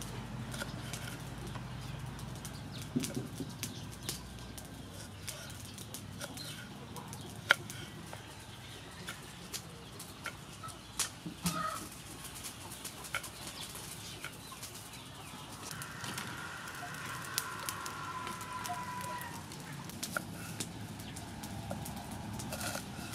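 A kitchen knife taps irregularly on a wooden cutting board as bitter gourd is sliced. A chicken gives a drawn-out call in the background from about two-thirds of the way in for some three seconds.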